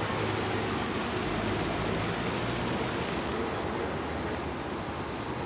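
A fire engine's engine running steadily, a low rumble with a steady hiss above it. The highest part of the hiss thins about three seconds in.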